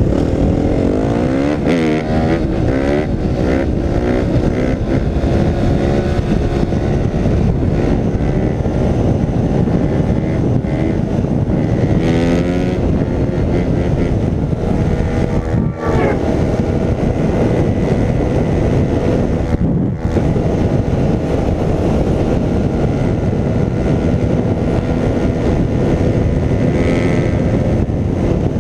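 Suzuki 250 dirt bike accelerating hard, its engine note climbing as it revs up, with a couple of brief dips where it shifts. Heavy wind roar on the helmet microphone runs under the engine throughout.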